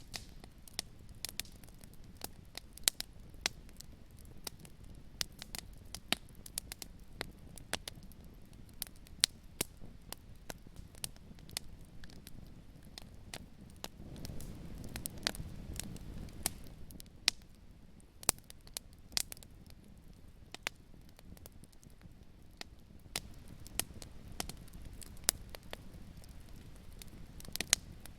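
Wood fire crackling, with irregular sharp pops over a low rumble of burning flames that swells for a few seconds about halfway through.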